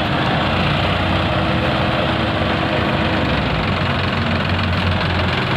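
Diesel engines of a combine harvester and a Sonalika tractor running at close range: a loud, steady engine drone that shifts in pitch about three and a half seconds in.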